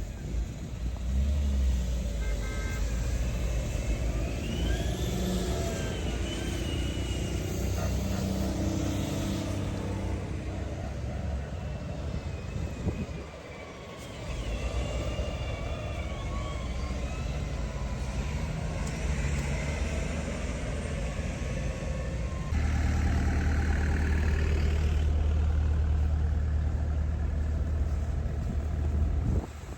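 Engines of heavy snow removal vehicles running, their pitch rising and falling as they work. The sound drops out briefly about halfway through and turns to a louder, steadier rumble about three quarters of the way in.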